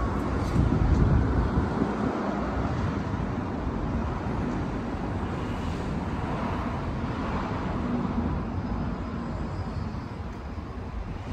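Steady low rumble of vehicles and street noise with no single clear event, easing slightly toward the end.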